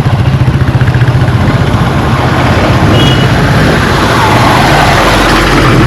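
Road traffic on a busy street: a vehicle engine running close by with a steady low hum, and a brief high beep about three seconds in.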